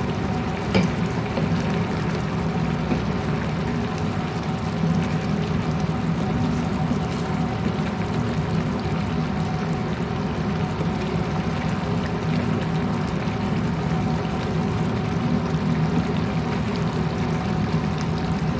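Cow liver stew bubbling at a boil in a pan, over a steady low hum.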